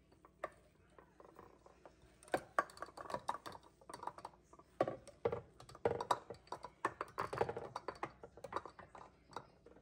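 Glass clip-top jars being moved around in a sink of soapy water: irregular clinks and knocks of glass against glass, starting about two seconds in and coming thick and fast until near the end.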